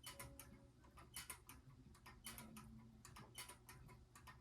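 Faint, irregular clicking and ticking, several clicks a second, from a battery-driven vintage Silver Mini Jupiter swinging kinetic desk toy in motion. It runs stiffly, its moving parts in need of loosening and oil.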